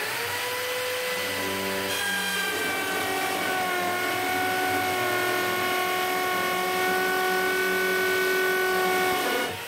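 Electric drill in a drill guide boring a 3/4-inch dog hole with a carbide-tipped Forstner bit into a wooden workbench top. The motor whine spins up, drops in pitch about two seconds in as the bit bites into the wood, then runs steadily under load. It dips briefly near the end as the drill is slowed for a clean exit cut.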